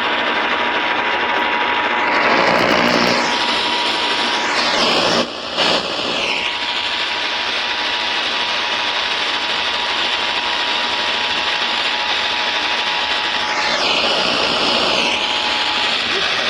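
Heavy static hiss from a weak radio signal, with the EAS two-tone attention signal (853 and 960 Hz) held steadily and faintly beneath it. The signal drops out briefly about five seconds in.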